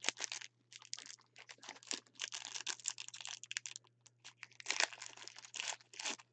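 Crinkling and rustling of a foil trading-card pack being torn open and its cards handled by gloved hands, in quick irregular bursts. A faint steady low hum runs underneath.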